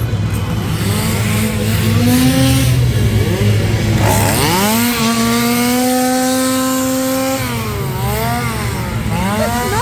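Gas chainsaws revving up and down, several at once, one held at high revs for a couple of seconds in the middle before dropping back, over a steady low drone.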